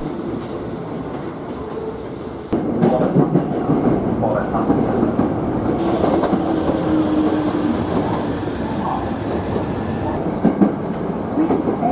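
Hankyu 7000-series electric train running through the station tracks, its wheels clattering over rail joints and points. The sound steps up louder about two and a half seconds in.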